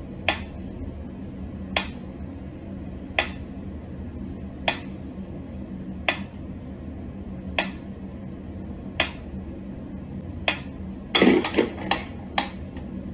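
Mechanical pyramid metronome ticking slowly, about one sharp tick every second and a half. About eleven seconds in, a quick run of louder knocks and clicks breaks the beat.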